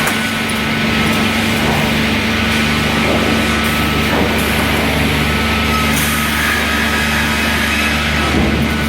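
Pallet-element sawmill line running: machinery with electric motors humming steadily, with a few brief surges of higher-pitched noise.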